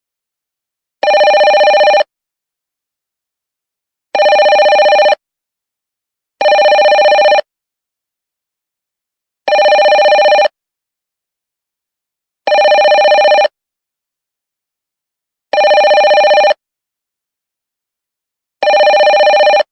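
Telephone ringing: seven rings of about a second each, the same two-tone pitch every time, spaced two to three seconds apart with silence between.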